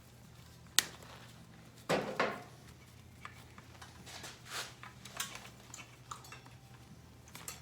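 Small metal clicks and knocks of tools and parts being handled during motorcycle wiring work: a sharp click about a second in, two louder knocks near two seconds, then lighter clinks and rustling, over a steady low hum.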